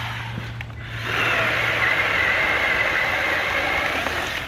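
Cordless JawSaw electric chainsaw running and cutting through small branches, with a steady high motor whine that rises in level about a second in and holds until near the end.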